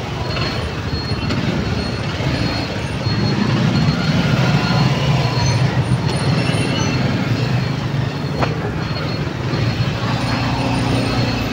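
Motorcycle engines running in dense, slow-moving traffic, heard from on a motorbike: a steady low engine drone over road and traffic noise.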